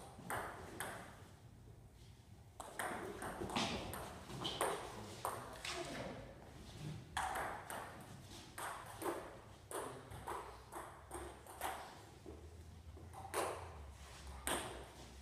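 Table tennis ball clicking off bats and bouncing on the table in quick back-and-forth rallies, several sharp clicks a second, with a short lull about a second in and another near the end.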